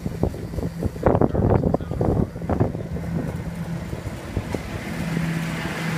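Wind buffeting the microphone of a moving bicycle, with knocks and rattles, over the steady hum of a garbage truck's engine running as the bike rides past it.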